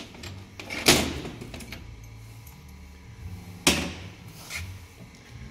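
Two sharp metal knocks, about three seconds apart, with a few lighter clinks between them, from tools and differential parts being handled on a steel workbench. A low steady hum runs underneath.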